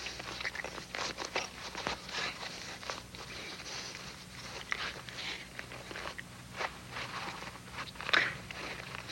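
A woman chewing a stiff, dried skin boot to soften it: irregular crunching, crackling bites, with a couple of louder ones near the end.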